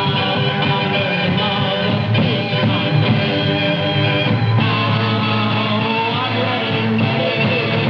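Loud rock music from a band, with electric guitar and a steady, dense sound throughout.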